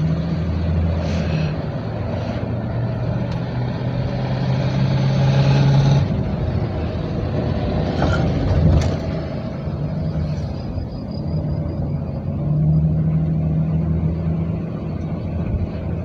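1999 Chevrolet Astro's 4.3-litre V6 engine running with road noise, heard from inside the cabin while driving, its note rising and falling as the van speeds up and slows. A couple of brief knocks come around eight to nine seconds in.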